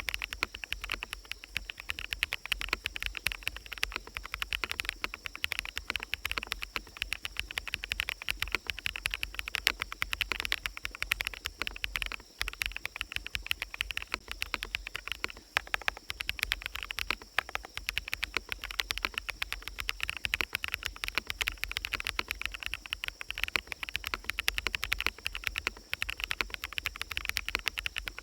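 Continuous fast typing on a mechanical keyboard with fully lubed bsun Sunset Yellow switches, many keystrokes a second without a pause, over a steady forest ambience.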